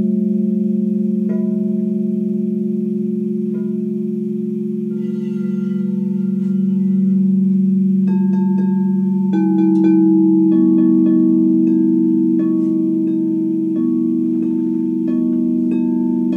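Frosted quartz crystal singing bowls struck one after another with a mallet, each strike adding a new ringing tone that hangs on and overlaps the others over a deep steady tone. The sound swells about ten seconds in, as more bowls ring together.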